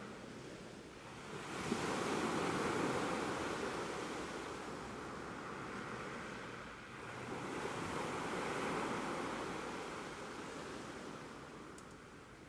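Ocean waves breaking and washing up the shore. Two swells build and ease off, one about a second and a half in and another about seven seconds in.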